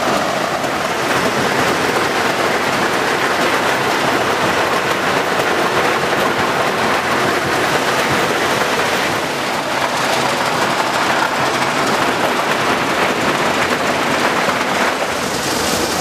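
Kisan 57-inch maize sheller-dehusker running, a steady dense rattling rush of maize grain and cobs passing through and out of the machine.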